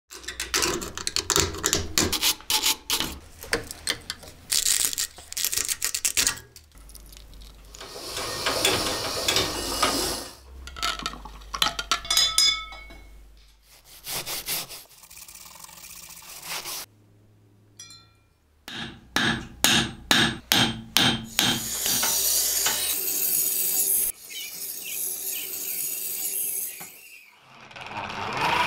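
Knife restoration work sounds in quick succession: rubbing, scraping and filing on rusty steel and wood, with many short knocks and taps. A bench buffing wheel spins near the end.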